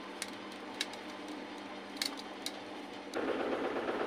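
Quiet room tone with a few faint metal clinks of a mixing bowl and whisk against a mesh strainer while custard is poured through it. A steady hiss comes in abruptly about three seconds in.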